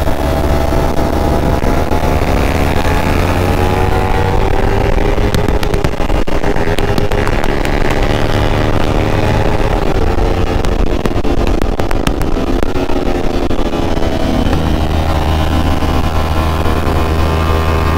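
Kawasaki ZX-25R's inline-four engine heard from the rider's seat, its pitch falling and rising several times as the throttle is opened and closed, over a steady low rumble of wind on the microphone. A few sharp clicks come in the middle.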